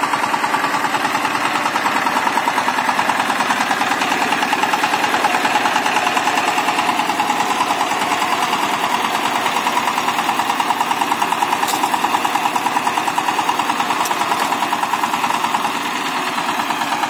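Walk-behind power tiller's single-cylinder diesel engine running steadily with a rapid, even chug while its rotary blades till the soil.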